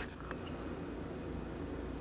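Steady low background hum of room tone, with the last ring of a utensil clinking on a dish fading out right at the start.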